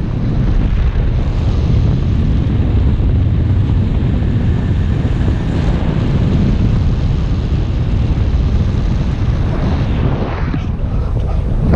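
Wind noise from the airflow of paraglider flight buffeting the camera microphone: a loud, steady low rumble.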